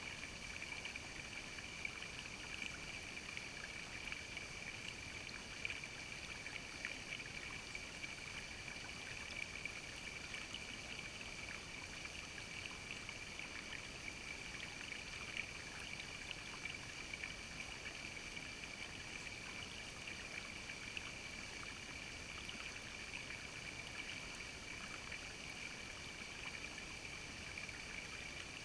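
Shallow creek water running and trickling over rocks: a steady burble with many small splashy ticks.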